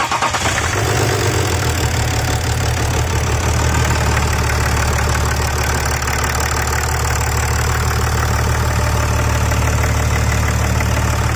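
BMW X6 diesel engine idling steadily just after a cold start. It is a normal diesel sound with no rattle or hammering, the lifter rattle now cured by new hydraulic lifters and timing chains.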